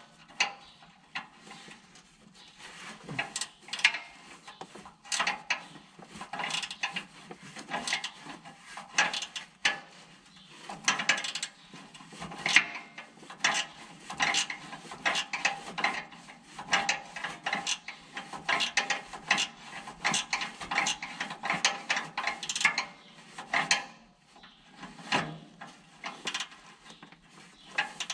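Hand socket ratchet clicking in rapid runs of strokes, broken by short pauses.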